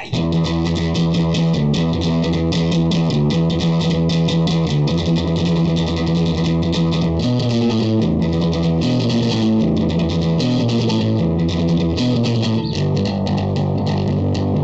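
Fender Jazz Bass played through an Orange Terror Bass 1000 hybrid valve head with the gain cranked and the EQ at zero: a heavily distorted bass line of rapid repeated notes that shift in pitch, big, distorted and nasty.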